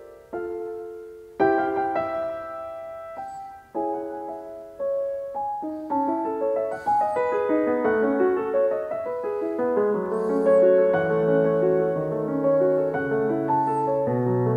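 Background piano music: single notes and chords that start sharply and fade, sparse at first, then fuller with low bass notes from about halfway through.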